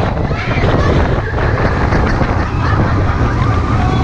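Roller coaster train running along the track with a steady low rumble and wind buffeting the on-ride microphone, with riders' drawn-out whooping cries rising and falling over it.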